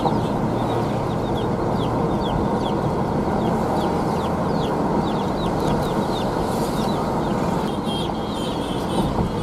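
Steady road and engine noise inside a moving vehicle's cabin, with a run of short, high, falling squeaks or chirps about twice a second over it.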